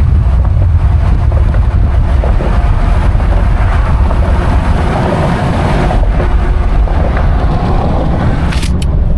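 Loud, steady low rumble of a moving vehicle with wind buffeting the microphone, and a few sharp clicks near the end.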